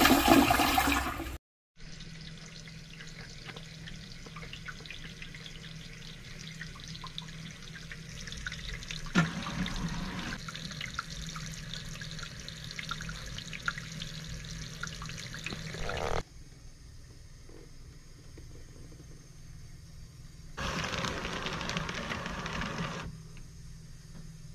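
A toilet flushing briefly. After a short break comes a faucet running steadily into a sink for about fourteen seconds, stopping suddenly. Near the end, a paper towel dispenser feeds out a towel for about two seconds.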